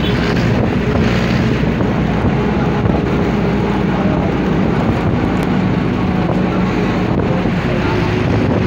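Steady vehicle running and road noise, with wind buffeting the microphone, heard from on board a moving vehicle.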